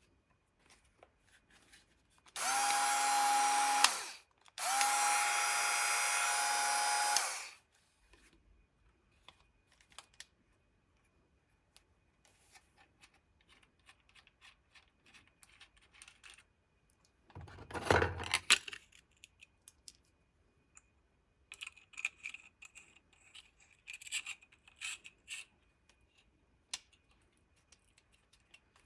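Makita cordless mini angle grinder with a 75 mm disc switched on twice, each time running at a steady pitch for about two to three seconds and then spinning down. Later comes a brief clatter and some rustling of the tool being handled.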